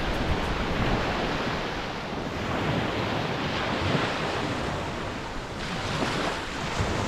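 Sea surf washing onto a sandy beach, the sound swelling and ebbing as waves come in, with wind buffeting the microphone.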